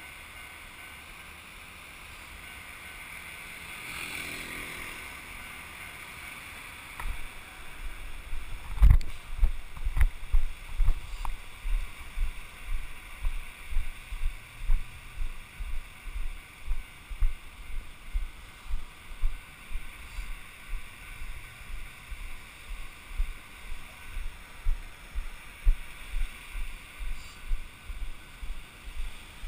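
A steady haze of surf and wind. From about seven seconds in, a regular run of low thumps, about two a second, comes in: walking steps jolting a pole-mounted action camera as it is carried over sand.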